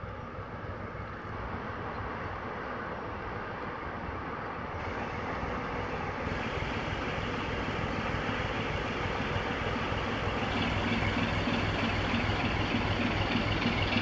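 The 560 hp Deutz diesel engine of a 1955 inland motor cargo ship running at a steady cruising note, growing steadily louder as the ship draws near.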